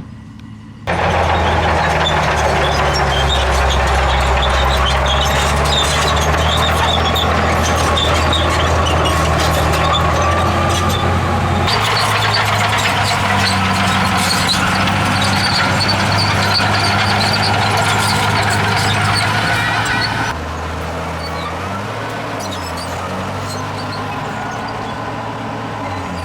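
Engines of heavy earthmoving machinery, bulldozers and dump trucks, running steadily. The sound starts abruptly about a second in and changes abruptly near twelve seconds and again near twenty seconds, where it drops a little in level, like cuts between separate shots.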